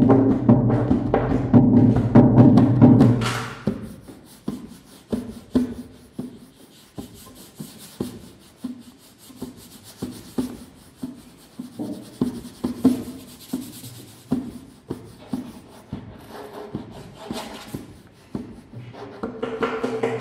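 Classical nylon-string guitar and a hand drum playing together: a full, loud passage for the first three seconds or so, then a quiet stretch of sparse guitar notes and light drum taps, building back up near the end.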